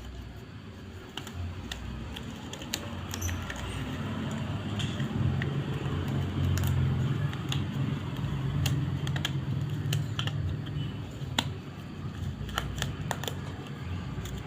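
Equipment being handled and set out: a string of light clicks, taps and small clatter. A low hum swells under it through the middle.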